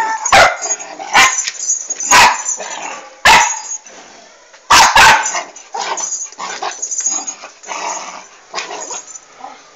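Dog barking: six sharp, loud barks over the first five seconds, the last two close together, followed by quieter, softer sounds.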